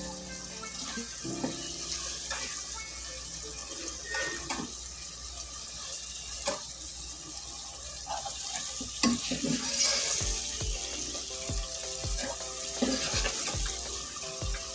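Chopped tomatoes and masala frying in oil in a pan as the tomatoes soften, a steady sizzle broken by scattered knocks and scrapes of stirring.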